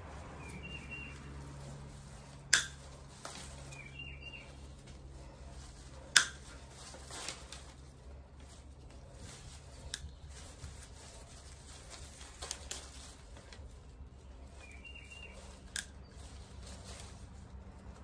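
Wire snips cutting through artificial flower stems: about six sharp snaps, spaced a few seconds apart, each one a stem cut through.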